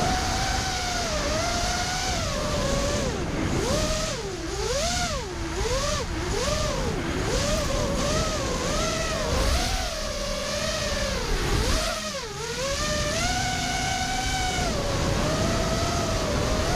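5-inch FPV racing quadcopter's brushless motors and propellers whining, the pitch swooping up and down again and again as the throttle is worked, over a rushing wind noise.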